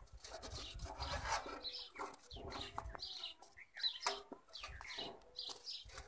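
Faint bird calls, short and scattered, with a few small knocks among them.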